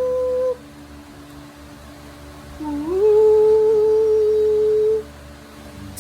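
Two long, steady humming tones. The first cuts off about half a second in; the second slides up into pitch after a quiet gap and holds for about two seconds.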